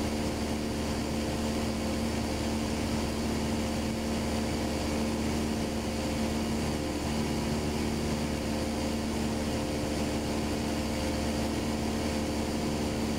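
Light aircraft's engine and propeller droning steadily in cruise, heard from inside the cockpit as an even hum of several steady tones.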